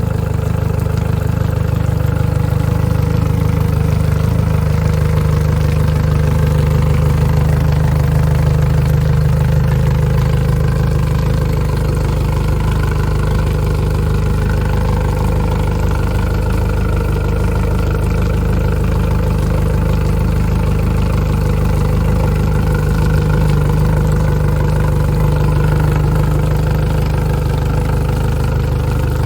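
2010 Yamaha F115 four-stroke inline-four outboard motor idling steadily, running on its first startup after years of sitting.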